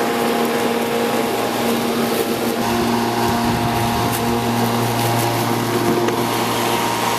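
Electric push lawn mower's motor running steadily as it cuts grass, a motor hum with several steady tones over the rush of the blade; the tone changes about three seconds in.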